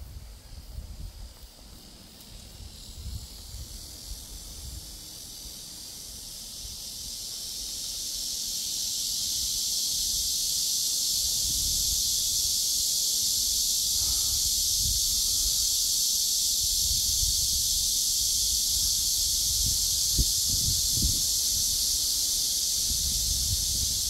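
Cicadas buzzing in a high, steady chorus that swells over the first ten seconds or so and then holds. Wind rumbles on the microphone in gusts.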